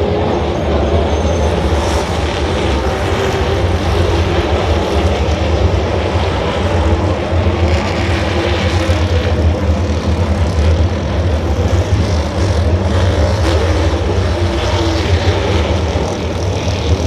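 A pack of NASCAR stock cars' V8 engines running together in a steady, loud drone.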